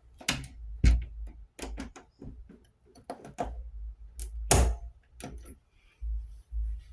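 An irregular string of clicks and knocks with low thumps in a small room. The loudest strike comes about a second in and a longer one about four and a half seconds in.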